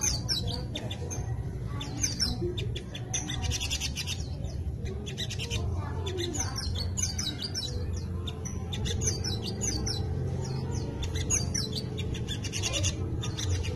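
A caged sogok ontong (little spiderhunter) singing a fast, high twittering song made up of mimicked pleci (white-eye) phrases, in short bursts of quick chirps and trills with brief pauses between them.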